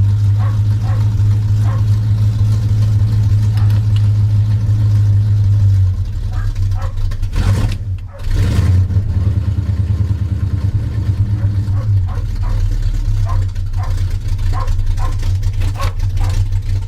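Chevrolet K10 pickup engine running on choke while warming up after a flooded cold start. About six seconds in the engine note drops, dips briefly near eight seconds, then settles into a lower, uneven idle.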